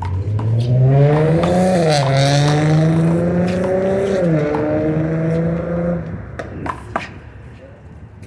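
A motor vehicle accelerating nearby, its engine note climbing and then dropping twice as it shifts gear, fading out about six seconds in. Sharp slaps of a handball are heard a few times, mostly near the end.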